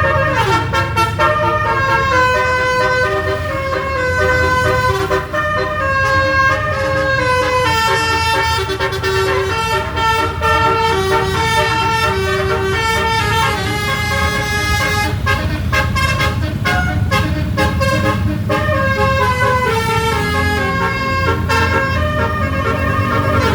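Indonesian tour bus's musical telolet (basuri) air horn playing a tune: held multi-tone notes stepping from pitch to pitch without a break, over a steady low rumble.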